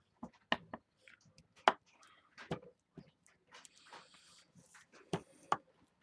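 Clear acrylic stamp block being tapped on an ink pad and pressed onto cardstock: a series of sharp taps, with a brief softer scuffing in the middle.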